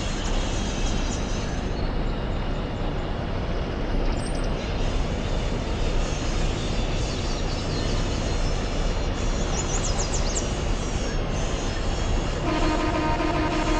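Vehicle running under way: a loud, steady rumbling and rattling noise, with a steady whine at several pitches setting in near the end.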